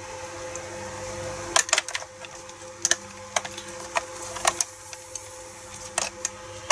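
Plastic case halves of an MF47 analogue multimeter knocking and clicking together as the back cover is pushed and worked by hand. There are a dozen or so short, sharp clicks at irregular intervals, and the cover is not yet seating.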